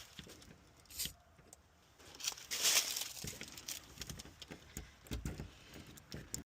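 Locksmith's tools working a house door lock: scattered small metallic clicks and taps, with a louder scraping rustle about two and a half seconds in. The sound cuts off suddenly near the end.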